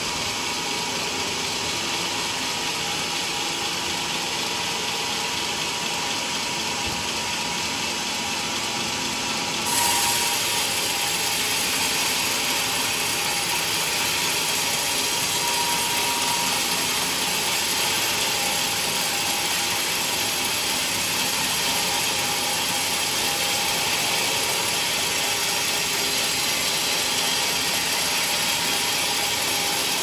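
A sawmill's band saw ripping a thick teak beam lengthwise, the blade running steadily in the cut with a dense mechanical rasp. It grows louder and brighter about ten seconds in and holds there.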